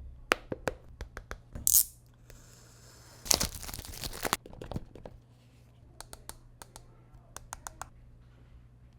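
Earbud packaging being handled while unboxed: a run of sharp clicks and taps, then a burst of packaging tearing and crinkling about two and a half to three and a half seconds in, the loudest part, followed by more scattered clicks.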